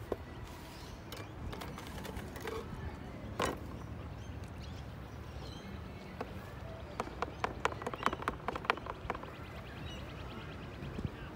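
Palette knife tapping and scraping on a paint palette and canvas: scattered sharp clicks that come thickest about seven to nine seconds in, over a steady low outdoor rumble.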